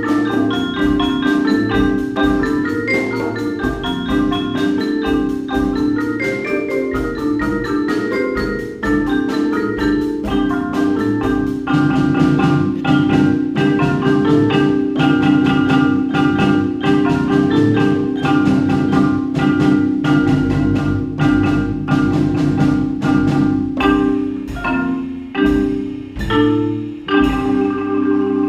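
Solo marimba played with four mallets: a quick, continuous flow of struck notes in even rhythm, thinning out to slower, separate strokes that ring out near the end.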